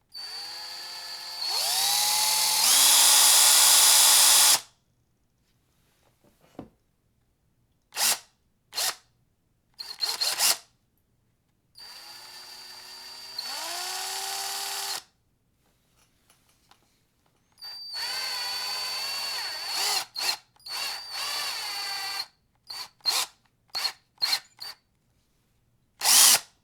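DeWalt power drill running in a series of trigger pulls: three longer runs whose motor whine steps up in pitch as the trigger is squeezed further, with short blips and pauses in between.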